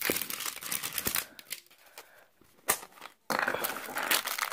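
Crinkly plastic wrapping being peeled and handled as a toy egg is unwrapped, with scattered clicks and one sharp snap a little before three seconds in. After that, steady crinkling as the wrapped toy is turned in the hands.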